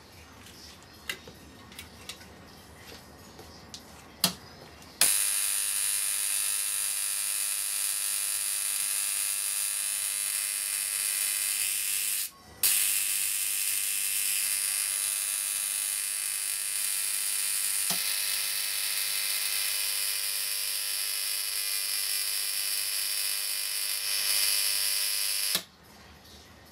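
High-voltage electric arc sparking between an electrode and magnesium shavings: a loud, steady, high-pitched buzzing hiss. It starts suddenly about five seconds in after a sharp snap, drops out for a moment near the middle, and cuts off about a second before the end.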